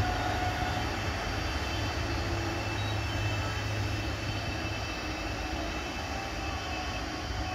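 Steady diesel engine drone of a Plasser RM80-92U ballast cleaning machine, a low hum under an even rumble, easing slightly as the machine moves away along the track.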